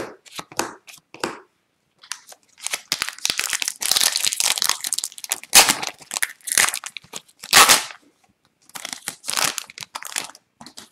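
A few short rustles of trading cards being handled, then the foil wrapper of an Upper Deck retail hockey card pack being torn open and crinkled by hand, with sharper rips about halfway through and again a little later, and a last stretch of crinkling as the cards come out near the end.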